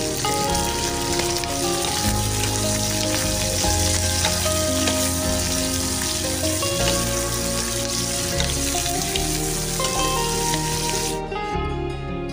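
Pork and green beans sizzling in a hot pan as they are stir-fried, over steady background music. The sizzling cuts off suddenly about eleven seconds in, leaving only the music.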